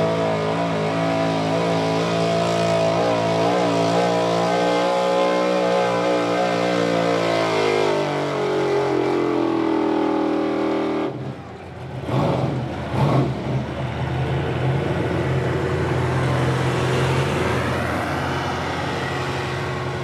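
Modified pulling pickup truck's engine at full throttle hauling a weight sled, its pitch wavering as the tyres spin, then sagging from about eight seconds in as the truck bogs down under the load. The throttle is cut abruptly at about eleven seconds, followed by a couple of short, loud revs and then the engine running at lower revs.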